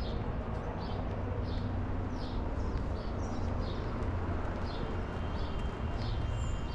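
A bird calling over and over, a short high note that slides down, about once a second, over a steady low rumble. About two-thirds of the way in, a thin steady high tone joins in.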